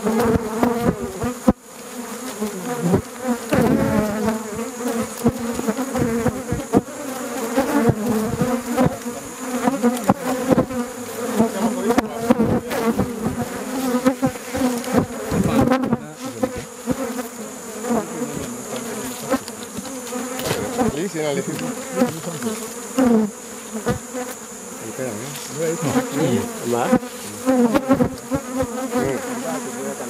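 A swarm of honeybees buzzing loudly and continuously around a traditional basket hive that has been taken down and is being opened; the bees are disturbed. It is a dense hum of many overlapping, wavering tones, with a few short knocks from the hive being handled.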